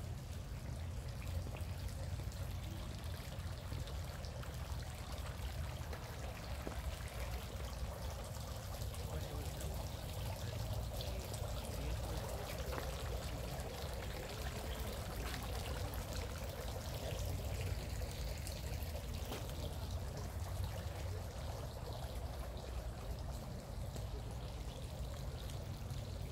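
Small fountain jets spraying into a garden pond, a steady trickling splash that grows stronger through the middle stretch, under a steady low rumble.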